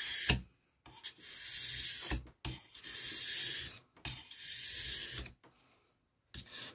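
Steel knife blade, held in a clip-on blade guide, drawn along a wet Parkside 2-in-1 sharpening stone. There are four gritty scraping strokes, each about a second long with short pauses between them, a few light knocks in the gaps, and a brief stroke near the end.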